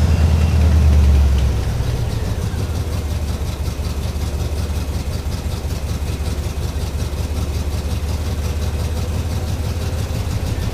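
Truck engine running just after its first start on a new wiring harness: it runs fast and loud for about a second and a half, then settles to a steady idle.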